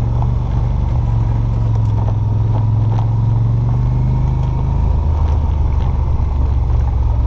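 ATV engine running at low trail speed, a steady drone that drops to a lower pitch about five seconds in as it eases off. A few light knocks come from the vehicle over the rough ground.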